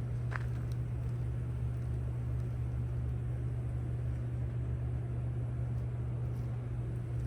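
Steady low drone of a running vehicle, even and unchanging, with a few faint light clicks.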